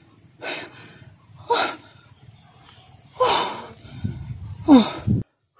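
Steady high insect drone, with a man's short breathy gasps about every second or so, each falling in pitch and the last ones loudest; it all cuts off suddenly near the end.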